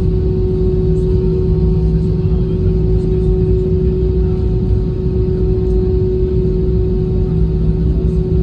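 Jet airliner cabin noise while taxiing after landing: a steady low rumble from the engines at idle, with a constant hum over it and a second, lower hum that fades about a second in and returns near the end.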